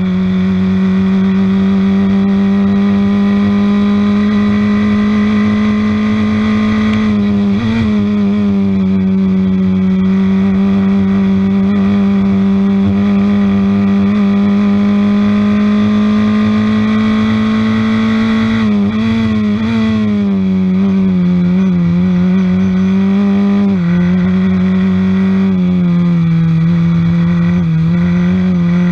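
On-board sound of a Piper DL07 Formula F race car's engine running hard at high revs, a loud steady note with a few brief dips and changes in pitch, about a quarter of the way in and twice in the last third.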